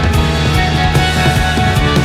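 Rock music soundtrack with a steady beat and sustained guitar and bass notes.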